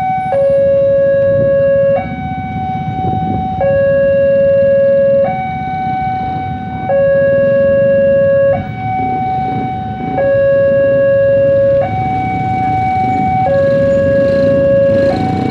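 Railway level-crossing alarm from the pole-mounted loudspeaker, sounding a two-tone warning: a lower and a higher note take turns, each held for about a second and a half, with the lower note louder. It is the crossing's signal that a train is approaching and the barrier is down.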